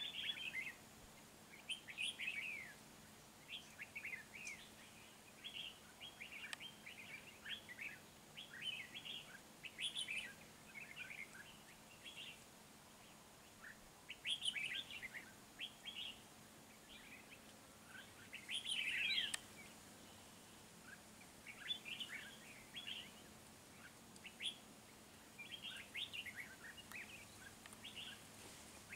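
Red-whiskered bulbuls singing and calling: short, chirpy, warbling phrases repeated every second or two, with a few louder bursts along the way.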